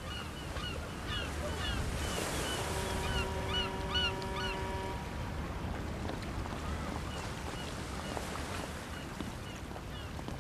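Birds chirping again and again in short, quick calls over a low steady hiss of wind and water. A steady horn-like tone is held for about two seconds, a few seconds in.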